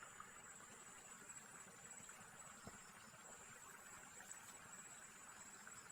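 Faint steady insect chorus, a thin high-pitched buzz that holds level throughout, with a single soft tick near the middle.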